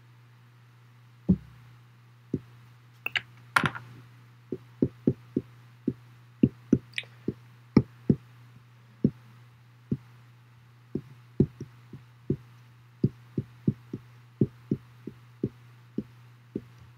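Marker tip tapping against a glass writing board as letters are written, an irregular series of short light taps, one or two a second, with a brief scrape about three and a half seconds in. A steady low hum runs underneath.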